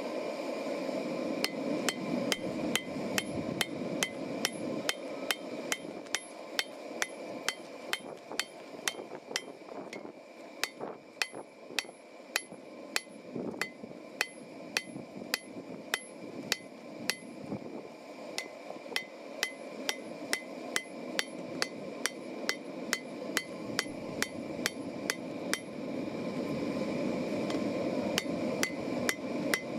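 Hand forging: a hammer striking steel on an anvil, starting about a second and a half in and going on in a steady rhythm of about two to three blows a second, each blow ringing.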